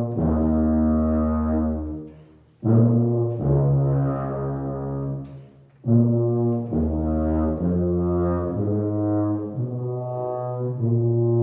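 Tuba played in its low register: long held notes in phrases, broken by two short breaths about two and a half and five and a half seconds in, then a string of notes moving step by step to a long final held note.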